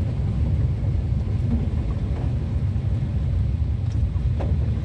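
Steady low rumble of vehicle engines and traffic.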